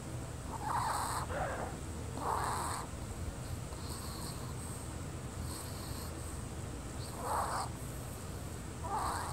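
Wheezing breathing: a faint high hiss comes back about every second and a half, and a few louder, rougher breaths fall about a second in, near two and a half seconds, and twice near the end.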